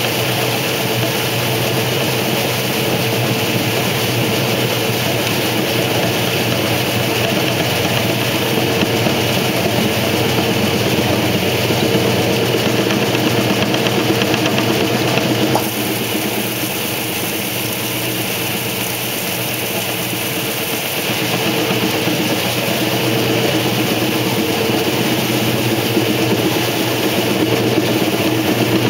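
1968 Kenmore 900 Series top-loading washer spinning: its motor and drive running with a steady hum as the basket turns at speed. The sound dips a little about halfway through and builds again over the last several seconds.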